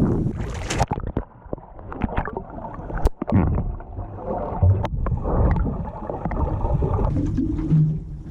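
Irregular knocks and handling noises aboard a small boat, with water noise, and a steady low hum starting near the end.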